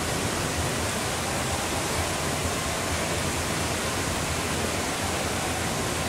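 Steady rush of water pouring from a children's water-play structure into a shallow pool, an even wash of noise with no breaks.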